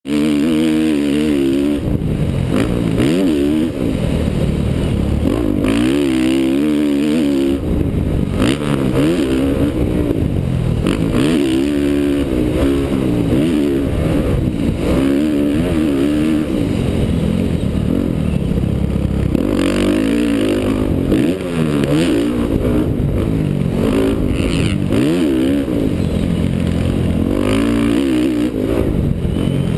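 Honda CRF450R's single-cylinder four-stroke engine being ridden hard around a motocross track, its pitch climbing and dropping again and again as the throttle is opened and shut, every second or two.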